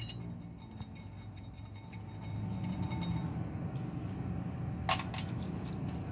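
Faint metal clinks of a wrench on flywheel bolts being loosened, with one sharper click about five seconds in, over a steady low hum that gets louder a couple of seconds in.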